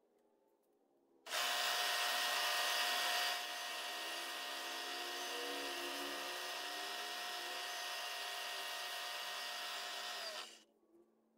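A milling machine cuts the aluminium casting with a spindle-driven cutter: a steady machining whine and cutting noise. It starts suddenly about a second in, gets slightly quieter after about two seconds, and stops near the end with a brief drop in pitch.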